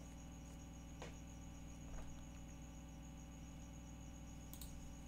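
Faint steady electrical hum and hiss of the recording setup, with three faint short clicks spread through it, the last near the end.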